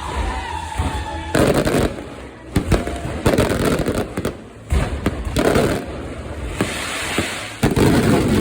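Fireworks going off in repeated loud bursts of dense crackling, with sharp bangs between them.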